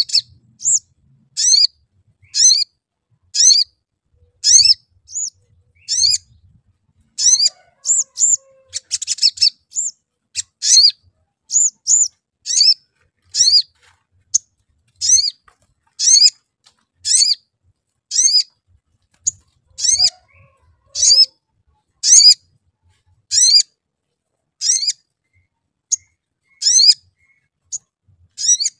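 Male olive-backed sunbird calling with high, thin 'cuit' chirps, short phrases repeated about once a second.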